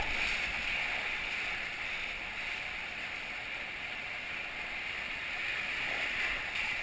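Whitewater rapids rushing steadily around an inflatable raft running through them.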